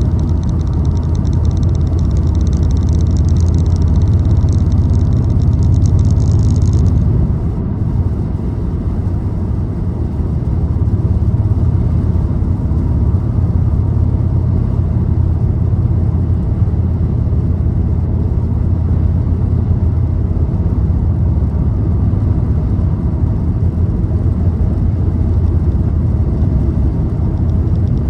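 Car driving steadily at speed: a constant low rumble of engine and tyre noise. A faint high, finely textured hiss rides along for the first seven seconds, then stops.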